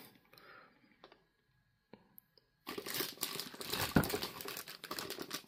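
Clear plastic wrapping around a boxed amplifier crinkling as it is handled. The first couple of seconds are almost silent; the crinkling starts near three seconds in, with a sharp tap about four seconds in.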